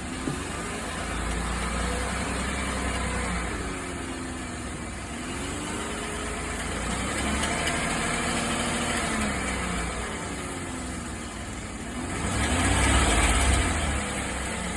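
2015 Chevrolet Silverado 1500 engine being revved up and let back down several times, the biggest rev near the end; the owner is trying to bring out a ticking he hears when accelerating.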